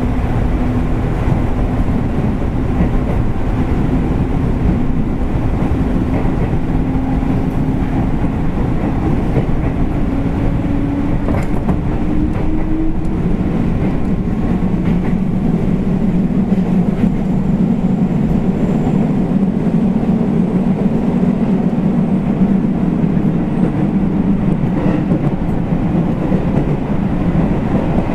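JR East 205 series electric train running, heard from inside at the end of a car: a steady rumble of wheels on rail. A hum rises slowly in pitch over the first twelve seconds or so, then gives way to a heavier low rumble from about halfway.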